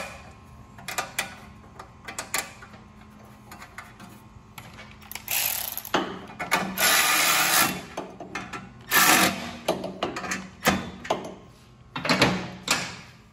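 Quarter-inch cordless electric ratchet running in several bursts of up to two seconds, driving in the bolts of a snow thrower engine's muffler guard, with light metal clicks and clinks of handling between the bursts.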